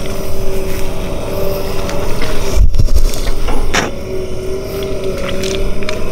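Sumitomo tracked excavator's diesel engine working under load, with a steady whine throughout. A dull low thump comes about two and a half seconds in.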